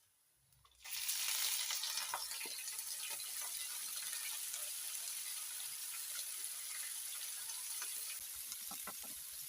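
Food sizzling in hot oil in a pan. The frying starts suddenly about a second in, as food meets the hot oil, then goes on as a steady sizzle with small crackles, easing slightly near the end.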